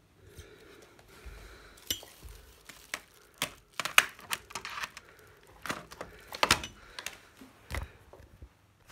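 Plastic CD jewel cases clacking against each other and a wooden CD rack as they are handled: a run of sharp, irregular clicks, loudest about four and six and a half seconds in.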